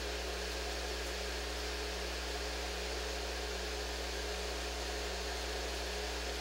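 Steady room noise: an even hiss over a low, constant hum, with nothing starting or stopping.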